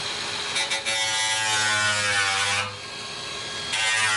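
Handheld electric power tool cutting into a car's bodywork at the wheel arch to clear room for the wheel; its pitch falls as it cuts. It drops away about two and a half seconds in and starts again about a second later.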